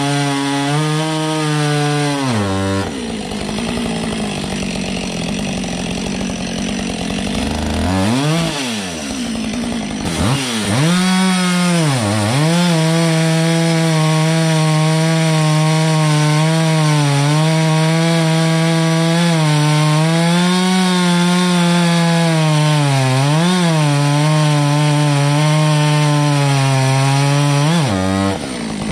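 Husqvarna 555 two-stroke chainsaw with a 24-inch bar running at full throttle, bucking log rounds, its engine pitch wavering as the chain bites. A few seconds in the engine drops off the high note, then is revved in quick blips before settling into a long steady cut through a large log.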